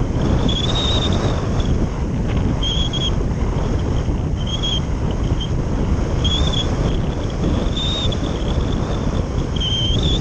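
Rushing wind and airflow buffeting the microphone of a camera mounted on a radio-controlled glider in flight, steady and loud throughout. Short high whines come and go every second or two over the rush.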